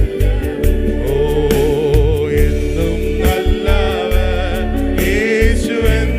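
Malayalam Christian worship song: voices singing over a band, with a steady drum beat and sustained bass and keyboard.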